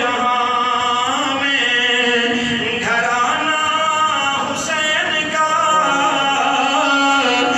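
A man's voice chanting in a sung, melodic style into a microphone, with long held notes that slide up and down in pitch.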